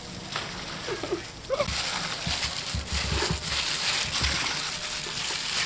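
Raw chicken drumsticks being mixed by hand in a wet marinade on a metal tray: a steady wet sloshing that starts about a second and a half in, with a few low thuds as the pieces are turned over.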